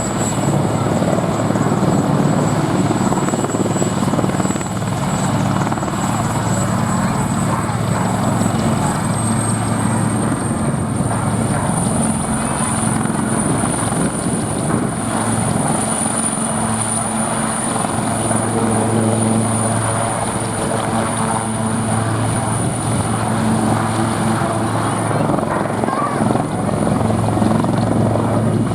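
Army Air Corps military helicopters flying in an airshow display: a steady, continuous rotor and engine sound, with a thin high whine that rises slightly in pitch about ten seconds in.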